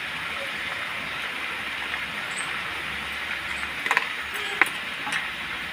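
Steady hiss of pumpkin pieces cooking in an iron kadai on a lit gas stove, with a few sharp metal clicks about four seconds in as the spoon is set down against the pan.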